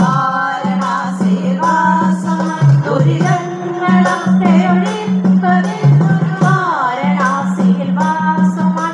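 Live Thiruvathira song: a group of singers holding long, gliding sung notes over a steady low accompaniment, with sharp percussion strikes about once a second keeping the dance beat.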